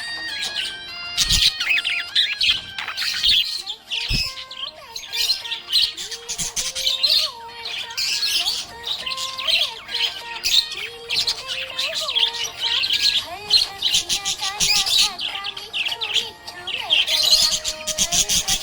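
Budgerigars chattering and warbling continuously, a rapid stream of high chirps with lower wavering notes, with two brief thumps about a second and about four seconds in.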